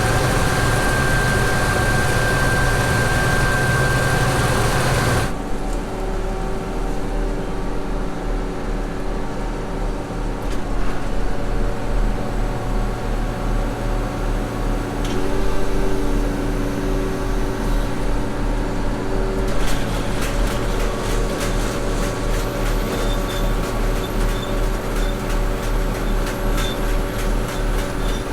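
Engine of a heavy farm machine running steadily, with a low pulsing hum; the sound changes abruptly about five seconds in, and a rapid stream of faint ticks joins it in the last third.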